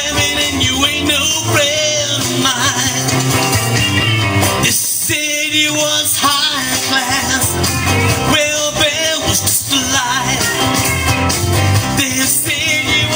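Rock-and-roll band music playing steadily, a stretch of the song with no sung lyrics.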